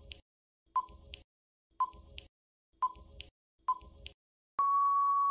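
Quiz countdown-timer sound effect: four short beeps about a second apart, then one long steady beep near the end, marking that the time to answer is up.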